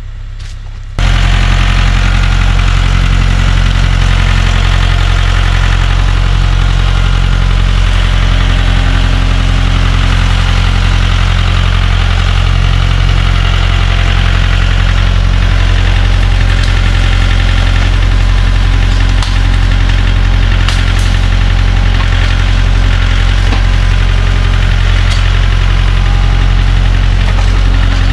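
Tractor engine running steadily and loud, jumping up in level about a second in and then holding even, with a few faint clanks over it.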